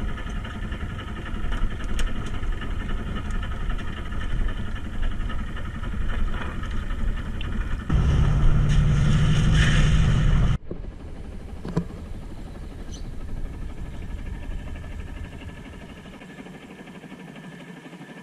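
Fishing boat's engine idling, a steady hum with a few sharp knocks over it. Past the middle the hum grows louder with a deep drone for a couple of seconds, then drops off abruptly and runs on quieter.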